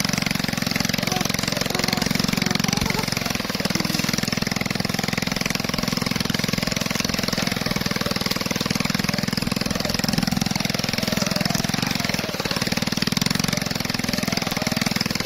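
Small motorcycle engine running steadily under load while it tows a plough through the soil.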